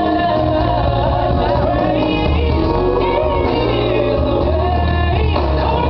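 A song with singing over a heavy bass beat, loud and steady throughout.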